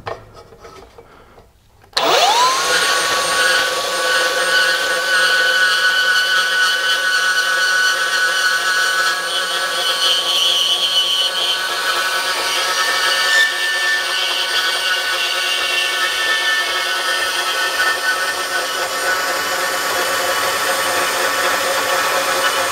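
Hercules 20V cordless brushless deep-cut band saw starting about two seconds in, its pitch rising quickly as the motor spins up, then running steadily as the blade cuts through 2 by 3 inch rectangular steel tube with an eighth-inch wall.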